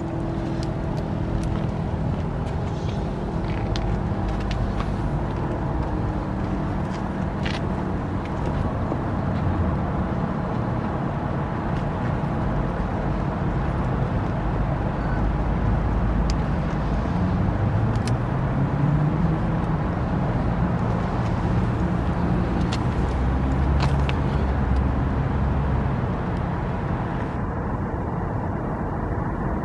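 Federal Signal Model 5 outdoor warning siren coasting at low speed after its attack signal: a steady deep rumble with a faint low tone that sinks early on, and a low rising glide partway through.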